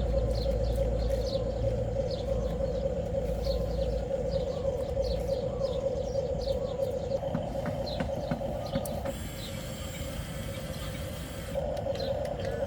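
Steady whine of a hobby-grade RC construction model's electric motor and gearing, rising for a couple of seconds about seven seconds in and again near the end. Birds chirp in quick, short falling notes over it.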